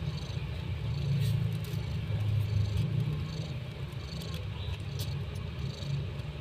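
Domestic mother cat purring steadily while nursing her newborn kittens, a low continuous rumble swelling and easing with her breathing, with a few faint ticks over it.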